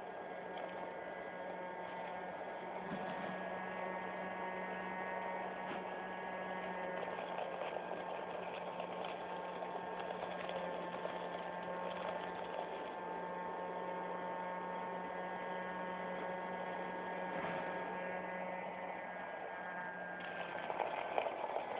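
Small electric motor of a homemade vacuum cleaner running steadily, a hum with a steady whine above it, with a few rattles near the end.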